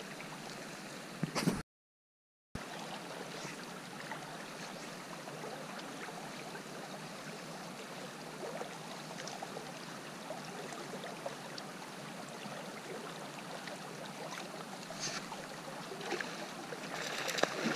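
Steady rush and gurgle of a shallow river's current running over a gravel bed. The sound cuts out completely for about a second near the start.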